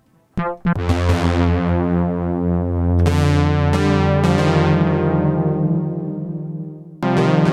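Modal Electronics Cobalt5S synthesizer playing a factory preset: chords struck on its keyboard, each with a bright attack that slowly fades. The sound dies away near the end and a new chord is struck.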